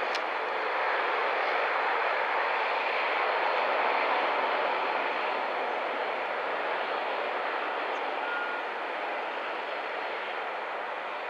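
Jet airliner's engines roaring as it passes close by, swelling to their loudest about four seconds in and then slowly fading.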